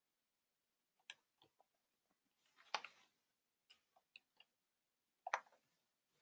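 Near silence broken by a scattering of faint, irregular clicks and taps, the two loudest about three seconds in and about five seconds in.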